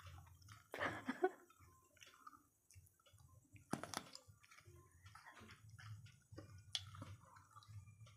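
Raw pointed gourd (potol) being bitten and chewed: a sharp crisp crunch about four seconds in, then a few fainter crunches of chewing.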